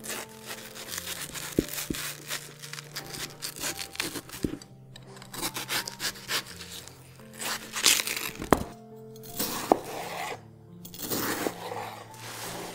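Kitchen knife slicing through watermelon flesh, giving repeated crisp, wet tearing and crunching strokes, with several sharp taps as the blade meets the cutting board. Soft background music plays underneath.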